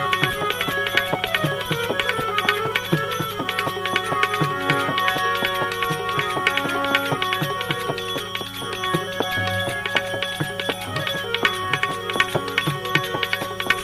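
Instrumental break in a Gujarati devotional bhajan between sung lines: a steady drum rhythm under sustained melodic instrument lines.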